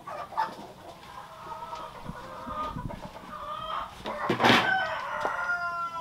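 Chickens clucking, then a rooster crowing in one long call over the last second and a half, just after a sudden loud noise about four and a half seconds in.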